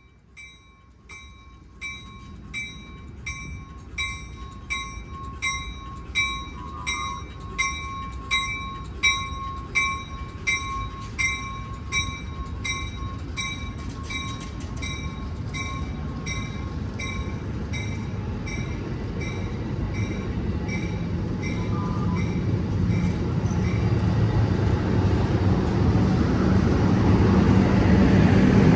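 A bell rings steadily at about one and a half strokes a second and fades out past the middle. Meanwhile a diesel train's low engine rumble builds and grows louder to the end.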